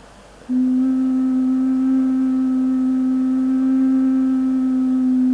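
Wooden ocarina sounding its lowest note, C, with all finger holes closed: one long, steady, muted tone that starts about half a second in.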